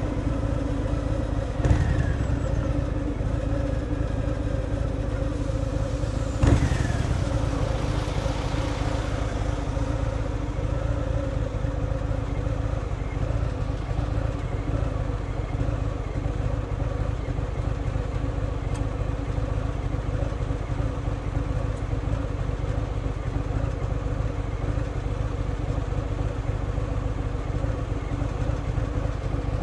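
Harley-Davidson Fat Boy's V-twin engine running steadily through its stock exhaust while riding. Two short knocks come about two seconds in and again about six and a half seconds in.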